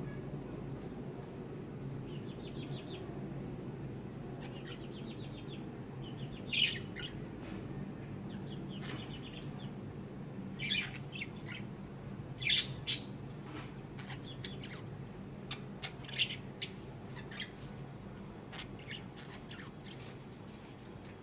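Pet lovebirds calling: scattered short, sharp squawks and chirps, loudest a few times in the middle, with spells of quick, rapid chattering between them. A steady low hum runs underneath.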